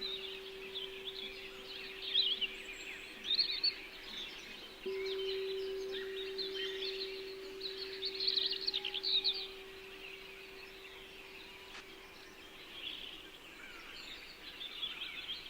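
Many small songbirds chirping and twittering over a singing bowl's steady low hum; the bowl sounds again about five seconds in and rings on for several seconds before dying away.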